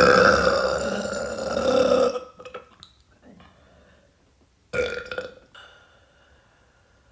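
A woman burping with breathy burps: one long, loud burp that ends about two seconds in, then a shorter burp about five seconds in.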